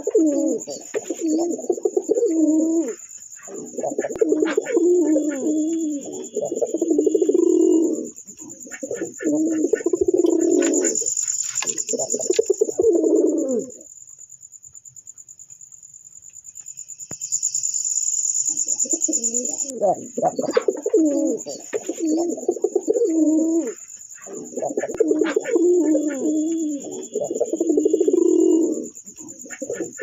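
Domestic pigeons cooing, several birds overlapping in long wavering bouts, with a lull of a few seconds around the middle. A steady high-pitched tone runs underneath throughout.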